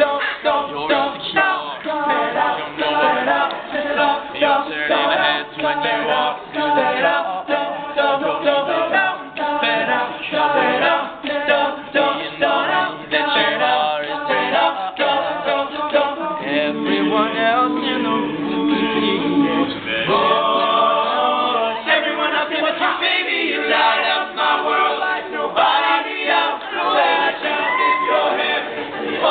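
All-male a cappella group singing a pop-song arrangement in close harmony, voices alone without instruments, with a few held chords partway through.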